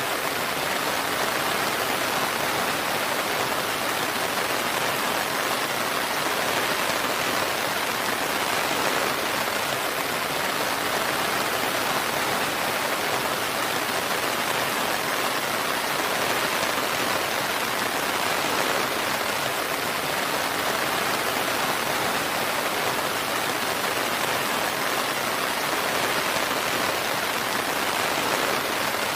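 Steady rain falling, an even, unbroken hiss with no thunder and no change in strength.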